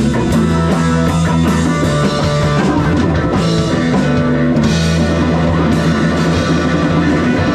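Rock band playing live, an instrumental passage with guitar, bass and drum kit at a steady beat.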